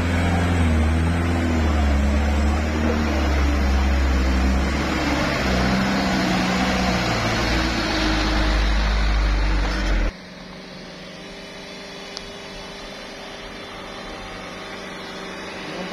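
Diesel engine of a Mitsubishi Fuso light dump truck driving up close past the camera under load, loud, with its pitch rising and falling. About two-thirds of the way through it cuts off abruptly, leaving a quieter, steady engine sound.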